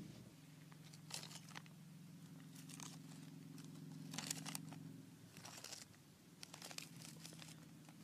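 Faint crackling rustles in about five short bursts, over a low steady hum.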